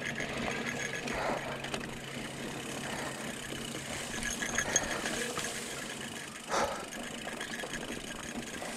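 Mountain bike coasting downhill on a dirt singletrack: the rear hub's freewheel buzzes steadily over the rolling of the tyres and the rattle of the bike. There are two brief louder noises, about a second in and again later.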